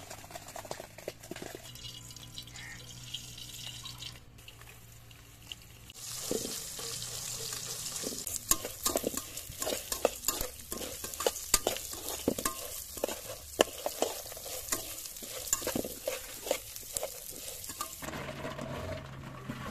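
Mustard seeds, cumin and raw chana dal sizzling in hot oil in a steel pan as a metal spoon stirs them, with many sharp clicks and scrapes of the spoon against the pan. The sizzling and stirring start about six seconds in and stop near the end.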